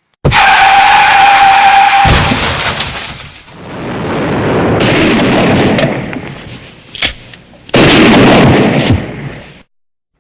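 Loud movie-style explosion effects in place of rainforest sounds. A blast at the start carries a steady high ringing tone for about two seconds, then a rolling rumble swells and fades. A sharp crack comes about 7 s in, and a final big blast about a second later, which cuts off abruptly.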